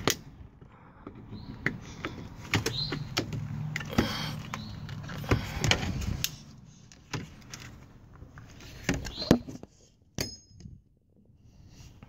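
Hard plastic trim on a Mercedes W210's door sill clicking and knocking as it is squeezed off its clips, with the rubber door weatherstrip being pulled back. A series of separate sharp clicks and taps, quieter near the end.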